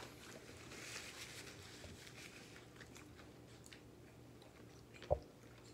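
Faint chewing of crispy fried chicken, with small crunches and ticks, and one short knock about five seconds in.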